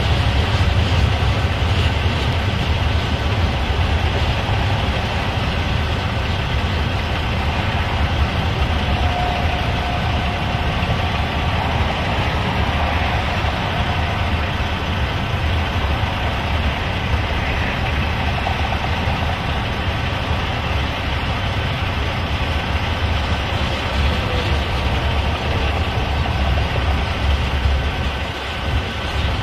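Freight cars of a long manifest train rolling past: a steady low rumble of wheels on the rails, with a few faint steady high tones.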